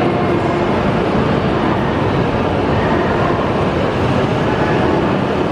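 Steady rumbling noise of a Tohoku Shinkansen train at a station platform, holding an even level throughout.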